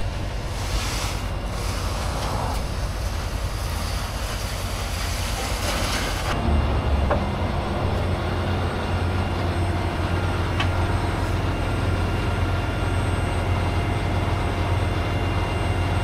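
Heavy diesel truck running steadily with a low hum. A higher rushing noise drops away suddenly about six seconds in, leaving the engine's hum.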